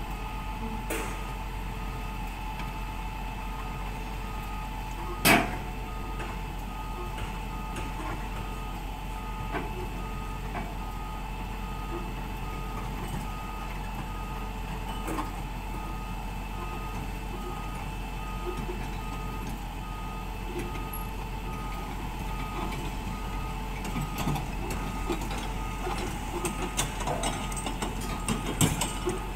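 Hyundai wheeled excavator's travel alarm beeping at a steady, regular rate over its diesel engine running. There is one sharp knock about five seconds in and some clattering near the end.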